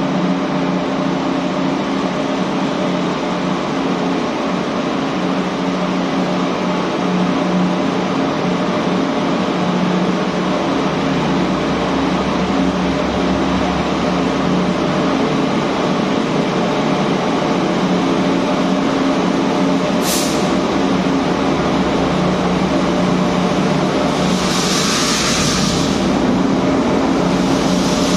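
Taiwan Railway R40 diesel locomotive drawing a passenger train along an underground station platform: a steady engine drone and rail noise echoing under the station roof. There is a short sharp hiss about 20 seconds in, and longer hissing near the end as the locomotive comes alongside.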